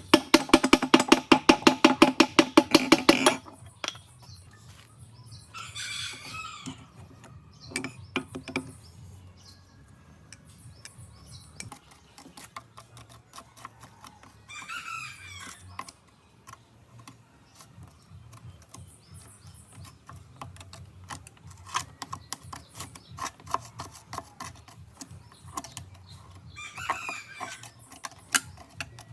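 A loud, rapid knocking for about three seconds at the start, then a rooster crowing three times, with scattered clicks and taps between the crows.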